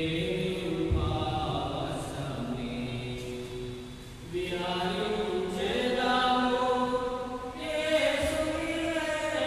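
Voices singing a slow liturgical chant in long held notes, in phrases with a short break about four seconds in and again near the end.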